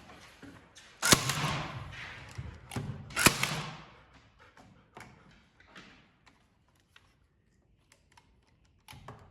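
Two loud, sharp knocks about two seconds apart, each with a long echoing decay, followed by a few lighter taps and clicks that fade into near silence.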